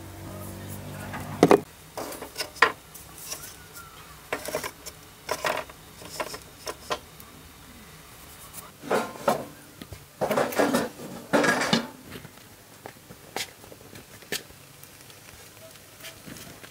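Dishes and cutlery clinking and knocking in scattered, irregular strokes, busiest around nine to twelve seconds in. A low hum stops about a second and a half in.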